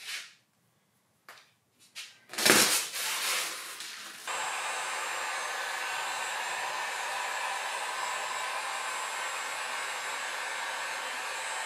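Handheld electric heat gun switched on about four seconds in and running steadily, a blowing hiss with a faint fan whine. A short loud noise comes shortly before it starts.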